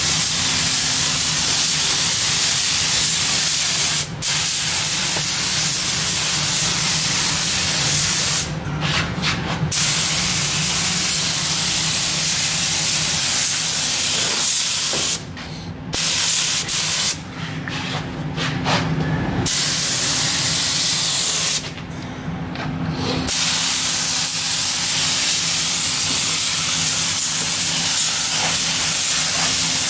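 Compressed-air paint spray gun hissing steadily as it sprays paint onto a car bumper. The hiss stops for a moment several times and then resumes, over a steady low hum.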